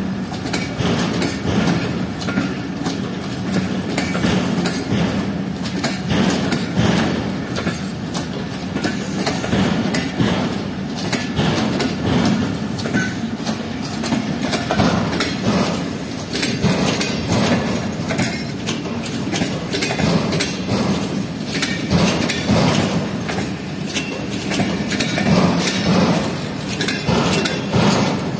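Passenger train coaches rolling past, their steel wheels clattering steadily over rail joints and points as the train crosses from one track to another.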